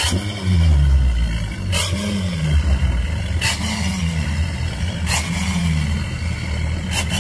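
Bank of seven outboard motors on a boat's stern running with a deep rumble. Roughly every second and a half there is a sharp burst, each followed by a falling tone, as the motors are throttled and churn the water.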